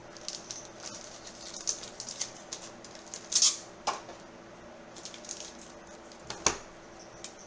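Trading cards and their packaging being handled: light rustling and scraping, with a longer swish about three and a half seconds in and a sharp click about a second before the end.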